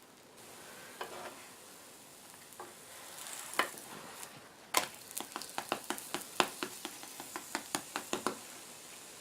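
Pancake batter sizzling in a frying pan, a steady hiss. In the second half comes a quick run of sharp clicks, about four a second, which are the loudest sounds.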